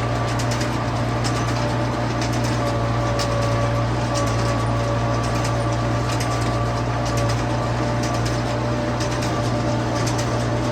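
Farm machinery running steadily: a constant low engine drone with a steady whine over it and irregular light ticking and rattling.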